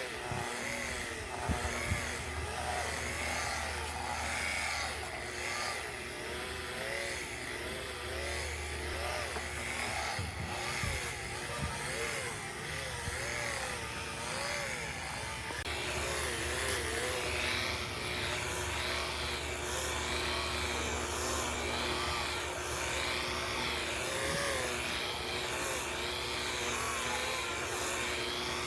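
Power tool motor running steadily, its pitch wavering up and down about once a second as it is worked.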